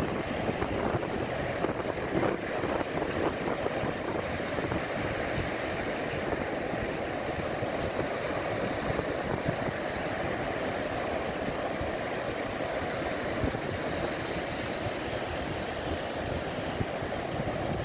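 Small waves breaking and washing up on a sandy beach, a steady wash of surf, with wind buffeting the microphone.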